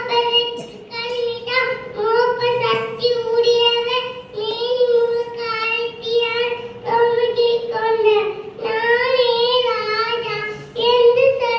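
A child's high voice singing a song, holding notes in phrases of one to two seconds with short breaks between them.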